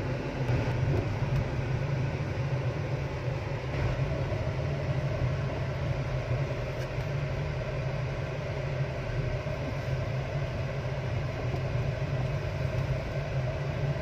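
Steady low hum of a car's engine and tyres heard from inside the cabin while driving.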